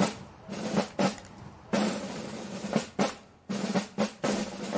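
Background music driven by sharp, uneven drum hits, snare and bass drum, over a low held note.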